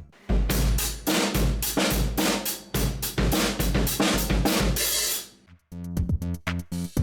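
A Pearl Session Custom SMX maple drum kit being played: bass drum kicks under a continuous wash of crashing cymbals for about five seconds. After a brief drop near the end, rhythmic music with pitched notes comes back in.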